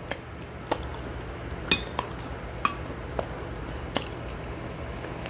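Several sharp clinks and taps on a metal sheet pan, a couple ringing briefly, with wet squishing as sauce-covered shrimp and seafood are handled for eating.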